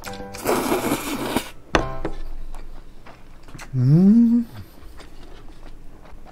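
A person slurps a mouthful of noodles in one long hiss, about a second long, starting half a second in, followed by a small click. Near the middle comes a hummed "mmm" of enjoyment that rises and then falls in pitch, the loudest sound here.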